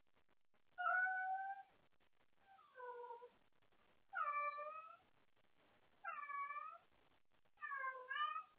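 Tabby cat meowing five times, one call every one and a half to two seconds, each under a second long, with some calls dropping in pitch at the end. The meows are the cat calling out for someone to play with.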